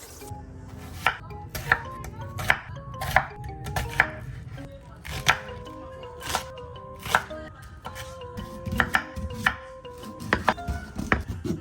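Kitchen knife chopping on a cutting board in unhurried single strokes about once a second, coming a little quicker near the end, over soft background music.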